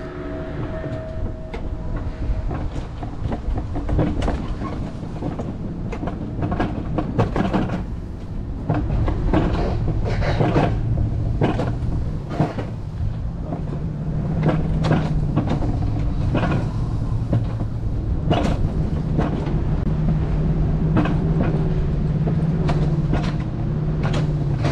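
Alpine coaster sled running downhill on its twin steel tube rails: a steady rolling rumble of the wheels with repeated sharp clacks. It grows louder about eight seconds in, and a low drone joins it in the second half.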